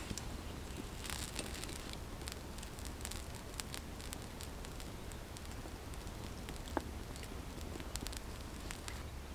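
Small wood campfire burning in a stone fire ring, crackling with many irregular sharp pops and one louder snap about two-thirds of the way through.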